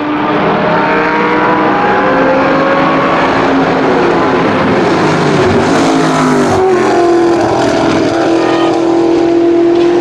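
Aston Martin AMR1 Group C race car's 6-litre V8 running loud, its note shifting in pitch in the first half and then holding steady.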